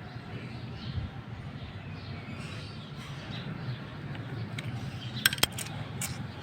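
Birds chirping faintly in the background, then a few sharp small clicks, the loudest a pair about five seconds in, like small metal parts being handled or set down.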